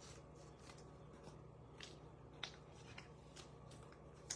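Faint handling of baseball trading cards: soft swishes of cards sliding off one another as they are flipped through, with a couple of sharper clicks, one about halfway through and one near the end.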